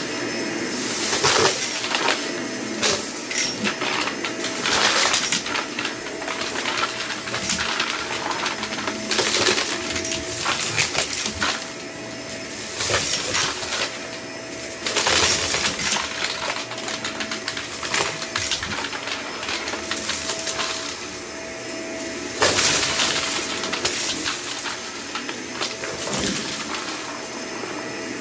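Cordless stick vacuum running with a steady whine as it is pushed back and forth over carpet. Confetti and sequins click and rattle as they are sucked up through the floor head into the clear dustbin.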